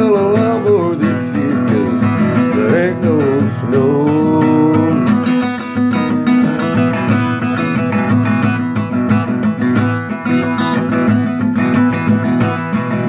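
Acoustic guitar strummed in a steady rhythm. For the first few seconds a held, wordless sung line slides up and down in pitch over it; after that the guitar plays on alone.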